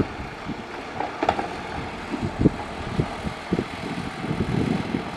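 Heavy earthmoving machinery at work: an engine running with irregular low thuds and clunks, and a brief sharp click about a second in.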